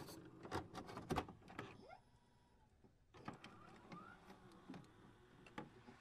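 Faint glitch sound effects for a loading-screen intro animation: scattered sharp clicks and ticks with a few short electronic chirps, dropping out for about a second in the middle.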